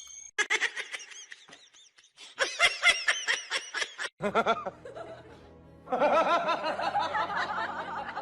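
Quick bursts of laughter or snickering during the first half, then music with held tones and more laughter over it.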